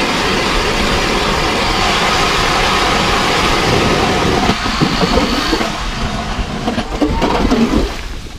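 Battery-powered StrikeMaster ice auger drilling into lake ice: a loud, steady whir of the motor and the blades cutting. After about four and a half seconds the sound turns rougher and uneven.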